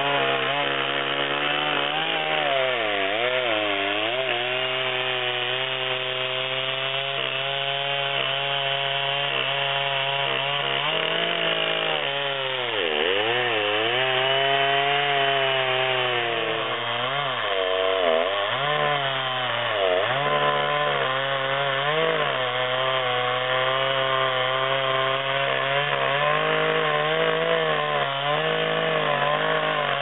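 Chainsaw with a 42-inch bar, mounted in an Alaskan chainsaw mill, running at full throttle as it rips a slab lengthwise off a balsam fir log. The engine note dips and recovers several times as the chain loads up in the cut, most deeply about thirteen seconds in.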